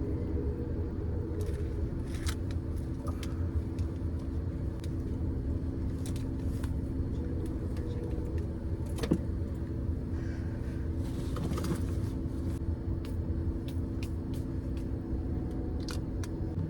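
Steady low rumble and hum of a moving Amtrak passenger train heard from inside its car, with scattered light clicks and knocks, the sharpest about nine seconds in.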